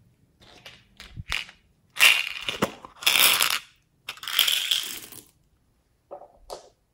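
Plastic pearl beads poured from a plastic cup onto slime, rattling in three loud pours starting about two, three and four seconds in, with a few lighter clicks before and after.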